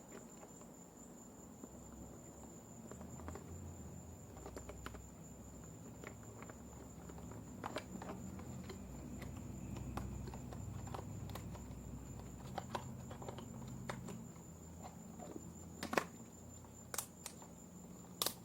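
Scattered clicks and taps of electrical wiring being handled and plugged in, the sharpest ones near the end. Beneath them is a low rumble through the middle stretch and a steady high-pitched tone throughout.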